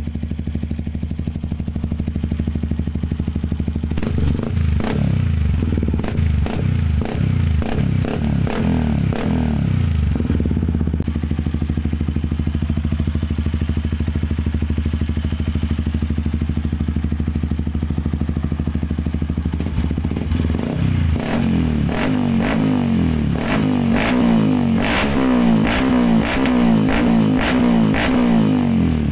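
Yamaha WR155R's 155 cc single-cylinder engine through a Norifumi aftermarket exhaust, idling and then revved in short repeated throttle blips, twice over: a first run of blips about four seconds in, and a quicker run in the last third before it drops back to idle.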